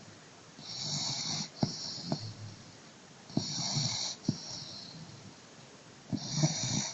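A dog snoring loudly in its sleep, like a bear: three rattling snores about every two and a half to three seconds, each carrying a hissing breath.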